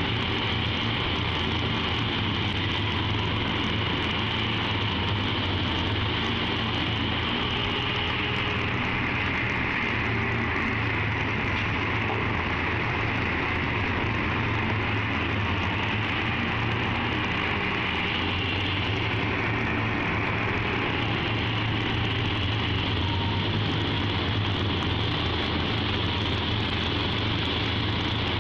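O&K hydraulic mining shovel running steadily as it digs and loads: a constant low machine drone with no breaks.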